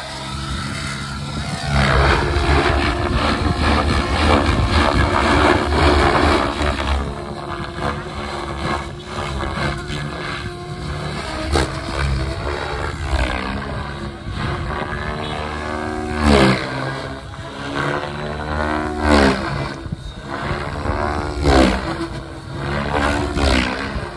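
XLPower 700 V2 NME radio-controlled helicopter flying 3D aerobatics: its engine and rotor blades run loud and steady at first, then rise and fall in pitch as it revs and swoops overhead. Three loud swells come near the end.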